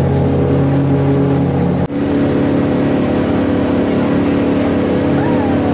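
Engine of a small passenger river boat running steadily, heard from on board. Its note dips briefly and changes pitch about two seconds in.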